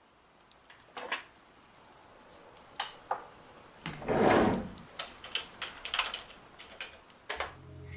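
A computer's power button clicks about a second in, a short rubbing swish follows near the middle, then a run of quick keyboard key clicks as someone types.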